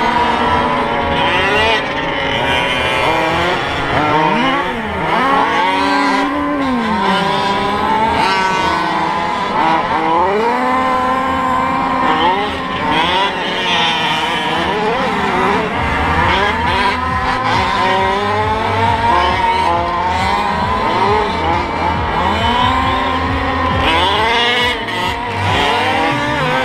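Several 1/5-scale gas-powered RC trucks, Losi 5IVE-T class, racing together, their small two-stroke engines revving up and easing off over and over, the overlapping whines rising and falling as they accelerate and slow for the turns.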